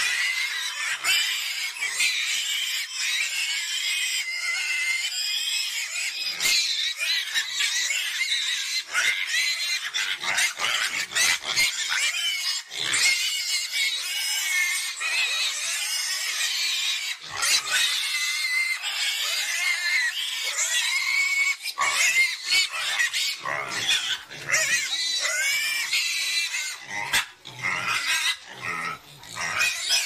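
A group of young pigs in a pen squealing almost without a break, high-pitched calls that rise and fall, with a few short knocks among them and some lower, deeper calls near the end.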